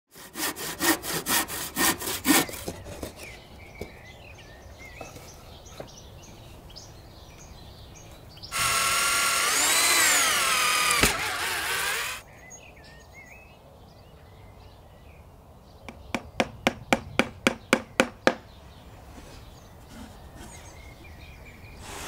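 A handsaw cuts through a wooden plank with several quick strokes. A few seconds later a power drill runs for about four seconds, its pitch rising and falling as it drives in. After that come about a dozen quick hammer blows in a row.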